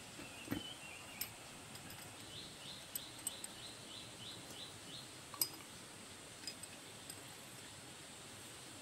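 Scattered small metal clinks and taps of tools and parts being handled at a single-cylinder diesel engine's valve springs and rocker arm, the sharpest about halfway through. Between about two and five seconds in, a bird gives a quick run of about ten short rising chirps.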